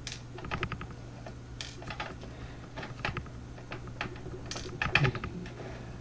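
Small, sharp metallic clicks and taps at an irregular pace from lock parts and tools being handled while a Mako 427 lock core is taken apart, with a quick run of clicks about five seconds in.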